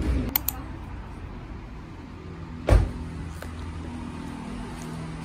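A car door shuts with one heavy thump about two and a half seconds in, over the steady low hum of an idling vehicle. Two short sharp clicks come near the start.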